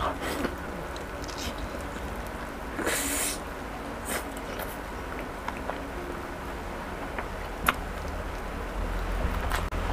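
Close-miked eating of fried chicken wings: bites, chewing and lip smacks pulling meat off the bone, with scattered sharp clicks and a brief crisp burst about three seconds in. A low steady rumble runs underneath.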